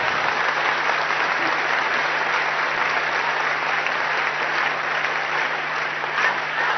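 Large hall audience applauding steadily.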